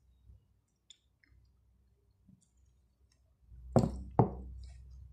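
Faint clicks while hands work a peeled ripe mango, then two sharp knocks about half a second apart near the end, as a slice is pulled off the fruit.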